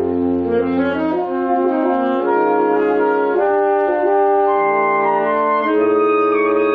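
Saxophone quintet of soprano, two altos, tenor and baritone saxophones playing a slow passage of held chords that change about once a second. The baritone's low bass note drops out about a second in and returns near the end.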